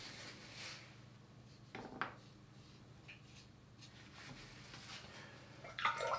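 Mostly a quiet room, with one faint tap about two seconds in. Near the end, clinking of a paintbrush against a ceramic dish starts as the brush is dampened.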